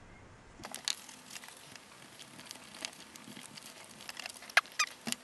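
Scattered soft scratches and light clicks, a few sharper near the end, from a paintbrush being dry-brushed over a miniature's slate base.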